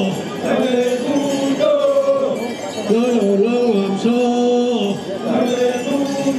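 Group of voices chanting a traditional dance song in unison, holding steady notes that step up and down, with the phrase repeating about every three seconds.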